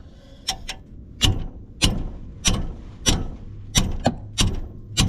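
A hammer strikes the handle of a ratchet fitted on a brake caliper-bracket bolt, with sharp metallic blows about every 0.6 seconds, to jar the tightly torqued bolt loose.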